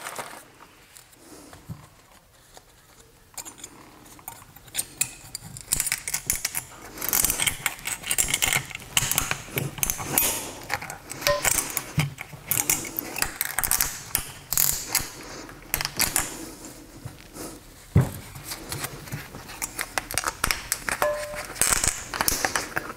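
Metal brake-pad clips and pads being handled and fitted on a workbench: a run of small metallic clicks, clinks and taps starting a few seconds in, with a sharper knock about three-quarters of the way through, fitting a small hammer tapping the clips into place.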